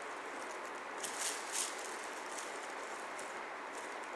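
Crinkly cat toys with shiny streamers being batted by a kitten's paws: a few short rustling crinkles about a second in, over a steady hiss.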